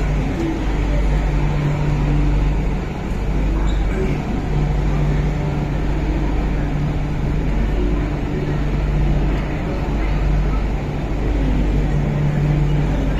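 Running noise inside an MTR Kwun Tong line Q-Train carriage: a steady rumble of the train on the track with a low, even hum.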